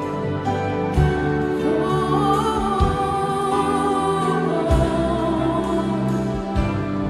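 Christian worship song: a sung melody over sustained chords with a regular beat of low drum hits.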